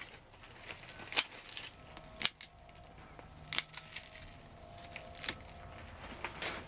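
Scissors snipping through kale leaf stalks and stem: about five sharp snips, a second or so apart.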